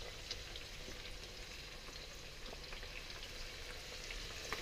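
Prawns, beef and fish cake sizzling steadily in a hot oiled wok, a soft even hiss with a few faint clicks.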